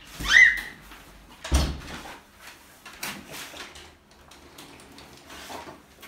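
A short, high squeak that rises in pitch and then holds briefly, followed about a second later by a single thump.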